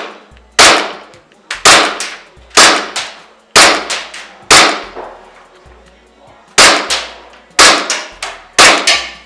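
A WE 18C Gen 4 gas blowback airsoft pistol firing single shots on green gas, with a sharp pop and slide clack each time. There are eight shots about a second apart, with a pause of about two seconds after the fifth.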